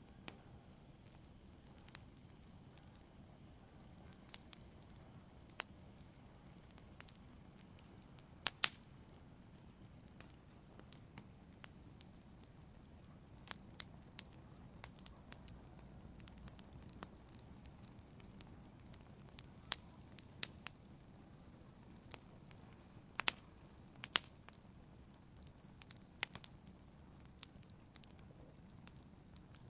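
Log fire in a fireplace crackling: irregular sharp pops and snaps over a faint, steady low hiss. The loudest pops come about nine seconds in and again around twenty-three seconds.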